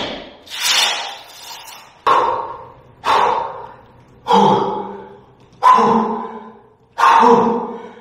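A series of loud, sharp, forceful breaths, about one every second and a quarter. Each starts suddenly and fades with a short echo.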